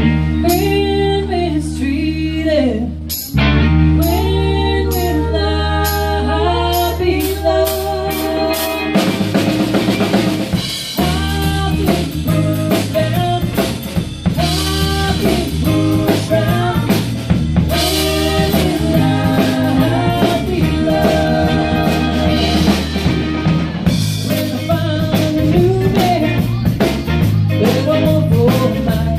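Live band playing a song: women singing lead and harmony over guitar, bass and drum kit. The drums come in fully about nine seconds in.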